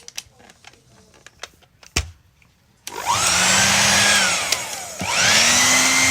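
Hair dryer switched on about three seconds in, its motor whine rising quickly to a steady run with loud rushing air. Its pitch then sinks as it is briefly switched off, and it is switched on again and winds back up to a steady run. Before it starts there are light clicks and taps of handling, with one louder click.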